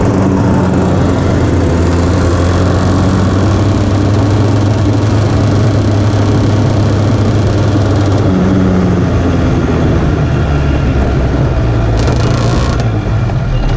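KZ2 shifter kart's 125 cc two-stroke engine running on track, heard from the onboard camera, its note holding fairly steady. The note changes about eight seconds in, and the sound eases off near the end.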